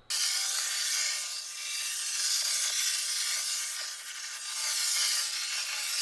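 Coredy R750 robot vacuum running on carpet: a steady hiss of suction and brushes with a faint motor whine. It starts abruptly and dips in level twice before swelling back.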